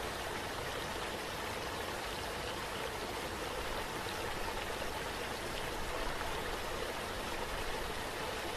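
Running water rushing steadily, a stream-like ambience with no breaks.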